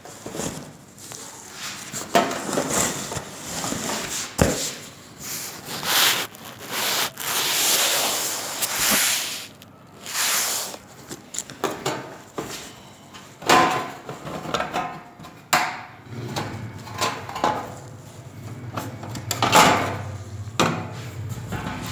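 Irregular rubbing, scraping and rustling as a boxed VCR and its packaging are handled, with a few sharp knocks. A steady low hum comes in about two-thirds of the way through.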